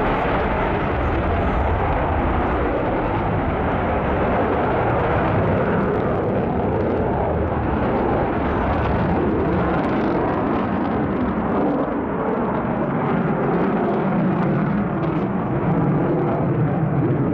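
Loud, steady jet noise from an F-16 fighter's single jet engine as the aircraft flies its display. The deep rumble eases somewhat after about twelve seconds.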